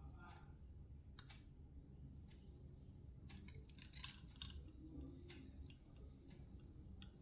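Knife blade drawn along an oval honing steel: a scattering of light metallic scrapes and clicks, thickest about three to four and a half seconds in.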